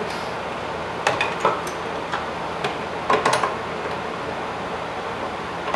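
Light metallic clicks and clinks of fuel-line fittings being handled and hand-threaded onto a new Honda Civic fuel filter, several times over about two seconds, over a steady low background hum.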